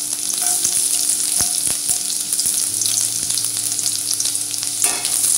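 Chopped garlic sizzling and crackling in hot oil in a kadai, with a few sharp clicks.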